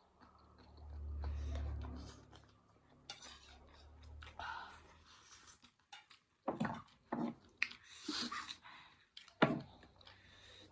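Close-up chewing of noodles, with a series of short, sharp mouth and utensil sounds in the second half. A muffled low rumble comes in the first couple of seconds.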